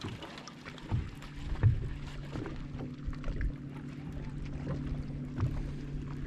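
Boat motor humming steadily at low speed, with light wind on the microphone and a few soft knocks.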